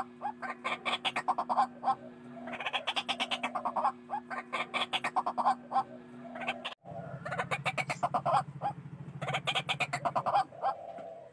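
White-breasted waterhen (ruak-ruak) calling: bursts of rapid, harsh repeated notes, one phrase after another. A break about seven seconds in leaves a low pulsing drone under the calls.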